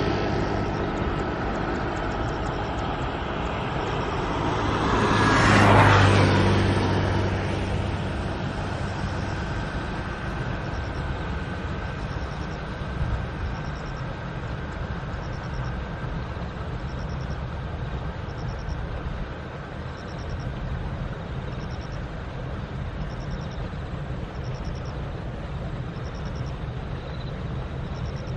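A vehicle passes by, loudest about six seconds in, over a steady hum of distant road traffic. From about nine seconds in, a faint high chirp repeats about once a second.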